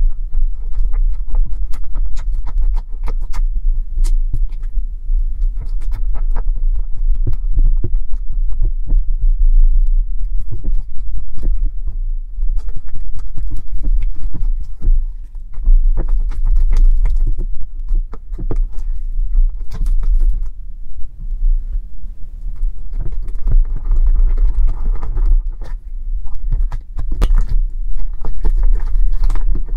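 Thick water-and-sugar slime being stirred and squished with a silicone spatula in a glass bowl, making a dense run of irregular sticky clicks and pops. Near the end, fingers press and knead the slime in the bowl.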